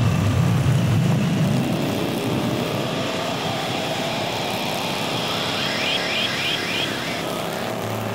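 Motorcycle engine running under way through winding curves, its low note rising and falling over the first few seconds and then steadier, with steady wind rush over the microphone.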